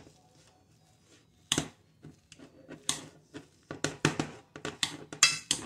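Wire potato masher pressed down through boiled potatoes, knocking against the bottom of a metal pot: irregular knocks, one about a second and a half in, then coming more often, roughly two a second, near the end.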